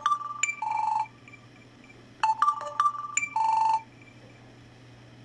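A Samsung Galaxy S-series phone's loudspeaker playing its short electronic test tune during the built-in speaker test. One phrase ends about a second in and the same few-note phrase plays again from about two seconds in, ending on a held note.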